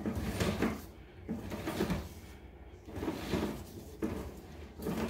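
Push cable of a micro-reel drain inspection camera being fed into the drain line by hand, sliding and rubbing in four separate strokes about one and a half seconds apart.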